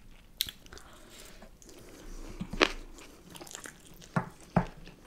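Close-miked crunchy biting and chewing of battered fried honey walnut shrimp, with a few sharp crunches: one about half a second in, one in the middle and two near the end.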